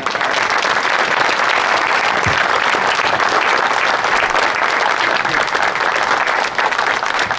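A crowd applauding outdoors, many hands clapping together in a steady, dense patter.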